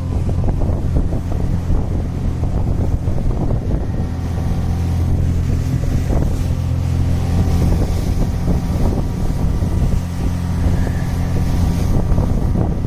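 Speedboat engine running at a steady pitch under way, with wind and water noise on the microphone.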